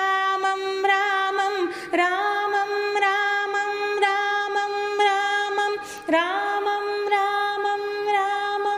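Devotional music: a woman's voice singing long held notes, breaking twice and sliding back up into a new note each time, over a soft tick about twice a second.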